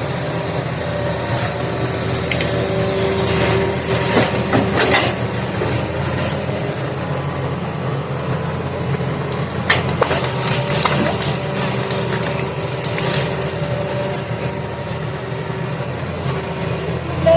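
Excavator engine running steadily, with clanks and knocks about five and ten seconds in.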